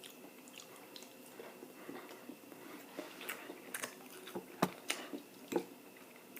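Close-up sounds of a person chewing and eating food, with wet mouth smacks and clicks, more frequent in the second half.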